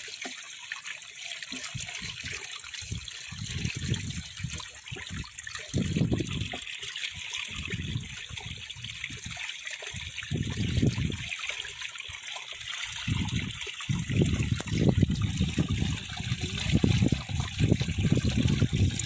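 Water trickling and gushing steadily through a gap in a mud dam into a woven fish-trap basket, with irregular low splashing and sloshing that gets heavier in the last few seconds.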